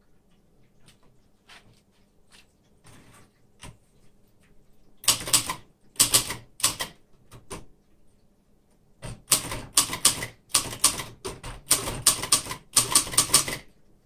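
1960s Royal Mercury manual portable typewriter being typed on: fast runs of sharp key strikes in two bursts, the first starting about five seconds in and the second after a short pause, preceded by a few faint clicks.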